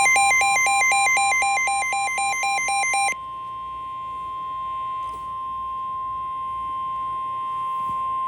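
NOAA Weather Radio warning alert: a steady single high alarm tone, the 1050 Hz warning alarm tone, with rapid alternating electronic beeping laid over it for the first three seconds. After that the steady tone sounds alone and cuts off sharply at the end. It is the alert that heralds a severe thunderstorm warning.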